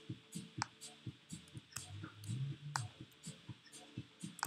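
Irregular clicking of a computer mouse and keyboard. A short low hum comes about two seconds in.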